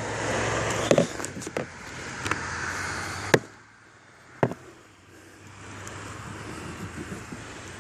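A few sharp metallic clicks and taps as a bolt is fitted and worked into a stripped, tape-wrapped hole, the loudest about three and a half seconds in. A steady background hum runs under the first part and drops away about three and a half seconds in.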